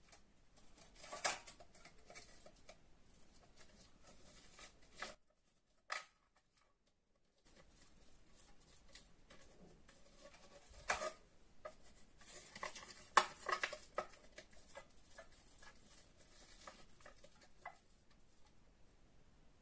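Aluminium foil baking cups handled over a stainless steel tray: soft crinkles and light taps of foil, with a silicone pastry brush rubbing inside a foil cup to grease it. The sounds come in scattered clusters, with a brief dead-silent gap near the middle.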